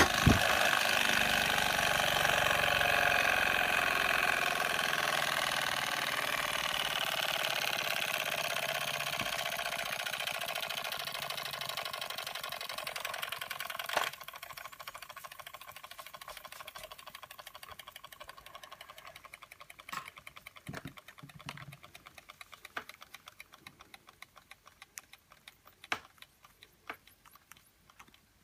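Doll dual-boiler toy steam engine running with a steady hissing rattle that fades gradually over the first fourteen seconds. A single knock about fourteen seconds in, then only faint rapid ticking and a few scattered clicks.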